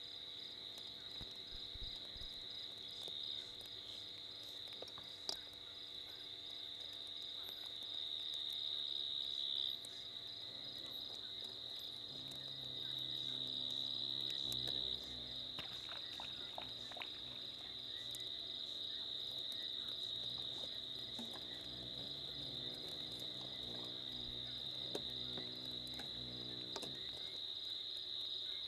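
Crickets in a steady, high-pitched trilling chorus.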